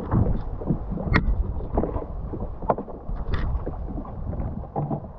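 Wind buffeting the microphone over water moving against the jet ski's hull, with irregular knocks and rubs from handling a gaffed mahi-mahi on the deck.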